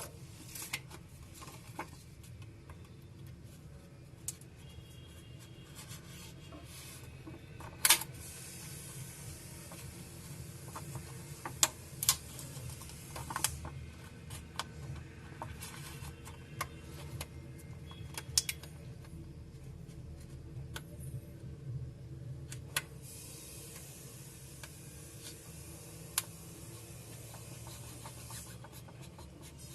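Scattered small clicks, taps and scrapes of handheld repair tools working on a smartphone's plastic housing, the sharpest click about 8 seconds in, over a steady low hum.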